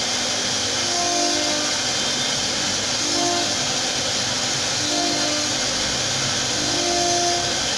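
CNC wood router running: a steady high spindle hiss, with short whining tones every second or two as the stepper motors drive the head from move to move.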